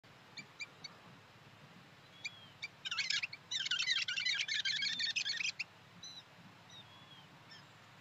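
Small songbirds calling: a few short high chirps, then a loud burst of rapid twittering lasting about three seconds, then a few scattered short whistled notes.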